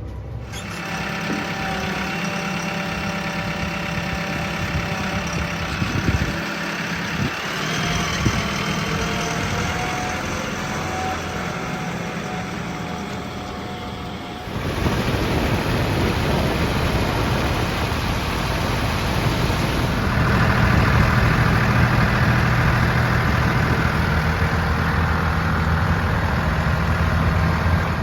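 Heavy diesel engine running at working speed, its pitch shifting now and then; the sound changes abruptly about halfway through and grows louder near the end.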